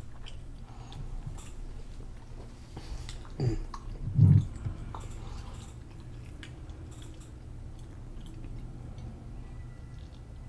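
Close-miked chewing and biting of food, with small wet mouth clicks and two louder low mouth sounds about three and a half and four seconds in; the chewing thins out in the second half, leaving a steady low hum.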